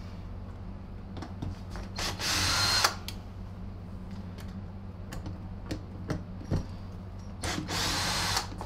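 Cordless drill/driver spinning in two short runs of about a second each, one about two seconds in and one near the end, working on a vacuum cleaner's motor housing. Light clicks and taps of small metal parts being handled come between the runs.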